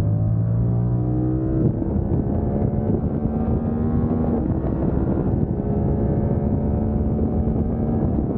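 Yamaha R7's 689 cc parallel-twin engine under hard acceleration, with wind rushing over the microphone. The pitch climbs and drops twice, about 2 and 4.5 seconds in, as the rider shifts up through the gears, then holds fairly steady.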